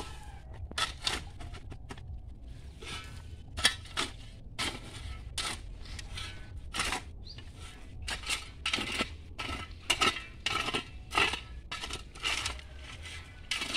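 Steel blade of a long-handled digging tool chopping into and scraping through dry soil while digging a hole, in uneven strokes at about two a second.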